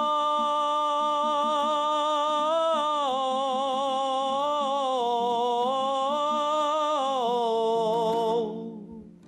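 A singer holds one long sung note at the end of a phrase of a Kazakh traditional-style song, the pitch stepping up and back down twice before sliding down. It is carried over a steady instrumental accompaniment and fades out about eight and a half seconds in.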